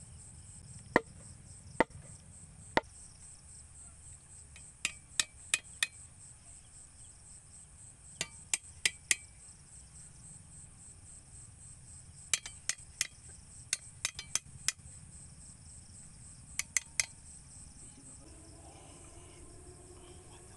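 Sharp knocks of a tool striking wooden stakes being set in the ground: a few single strikes, then quick runs of three or four. Crickets chirr steadily and high underneath.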